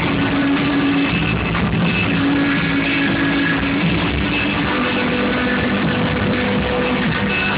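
Live rock band music playing loudly and continuously over a festival sound system, recorded on a mobile phone so the top end is cut off.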